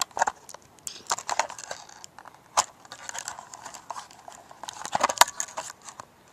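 Close camera handling noise: a run of irregular clicks, taps and scuffs as the camera is picked up and repositioned, with one sharp click about two and a half seconds in and a busier cluster of knocks around five seconds.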